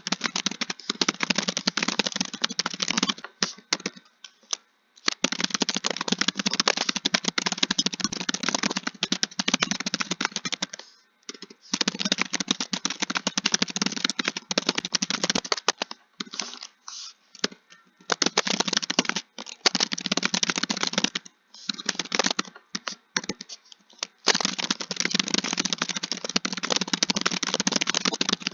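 Fast typing on a computer keyboard: a rapid, continuous patter of key clicks in long runs, stopping for short pauses several times.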